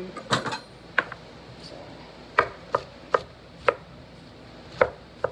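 Kitchen knife chopping mushrooms on a wooden cutting board: about eight sharp, irregularly spaced knocks of the blade against the board.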